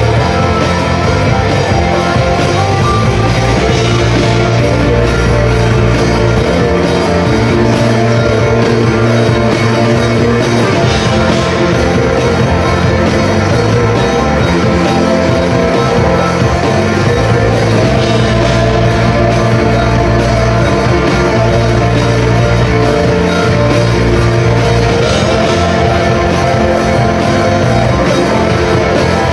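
Rock band playing live and loud, with electric guitar and a steady drum beat.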